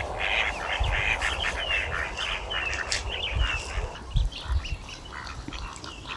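A crowd of birds calling over and over in short, overlapping calls, some of them brief falling notes. The calls thin out in the last couple of seconds.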